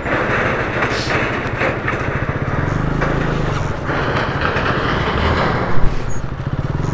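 Motorcycle engine running at low speed over rough ground, its firing pulses steady under a constant rushing noise. A single sharp knock stands out about six seconds in.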